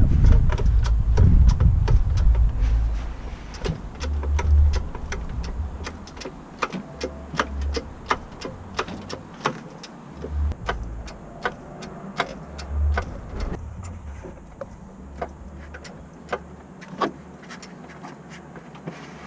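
Irregular metallic clicks and knocks of tools at work, over a low rumble that is strong for the first few seconds and then comes and goes in short bursts.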